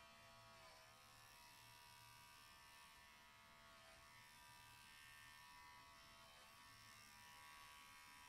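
Electric pet hair clipper running with a faint, steady buzz, its pitch sagging briefly a couple of times.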